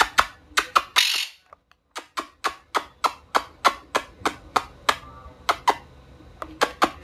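Repeated sharp tapping of a hand on the top of a sofa to call a bird over, about three to four taps a second, with a brief rustle and short pause about a second in.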